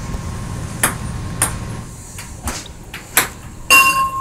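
Ping-pong ball ticking off paddle and table in a series of sharp, separate clicks. About three and a half seconds in comes a louder clatter with a brief ringing tone, the ball landing in the glass at the far end of the table.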